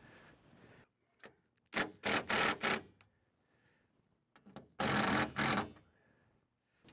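Cordless drill-driver run in short bursts while fastening a solar panel to its rack: three quick bursts around two seconds in, then two more about three seconds later.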